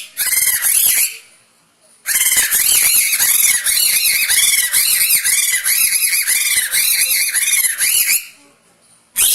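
Kathputli puppeteer's boli, the mouth-held reed whistle that gives the puppets their voice: shrill, squeaky chatter in quick up-and-down pitch swoops. It comes in bursts: a short one at the start, a long one of about six seconds, and another beginning near the end.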